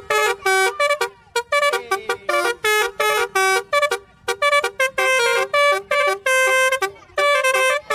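Basuri telolet bus horn playing a quick tune: a run of short, clipped horn notes of changing pitch, with a few longer held notes.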